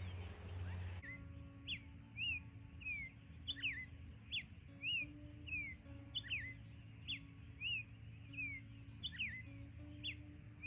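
Short, bird-like chirping whistles repeating about twice a second over low sustained notes that change pitch now and then, starting abruptly about a second in. Most likely background music added in editing.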